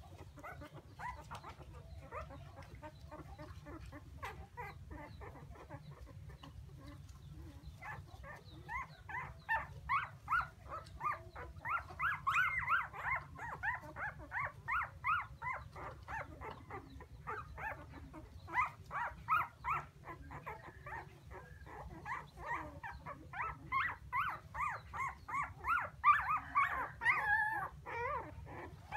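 Young puppies whining and crying in quick runs of short high-pitched cries, faint at first and louder and more insistent from about eight seconds in, with a short lull about two-thirds of the way through. A low steady hum runs underneath.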